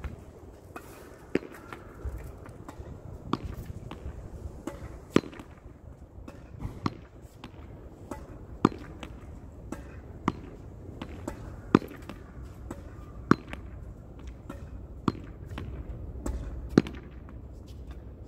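A ball being hit against a wall over and over, a sharp impact about every one and a half to two seconds, with fainter knocks between the main strikes.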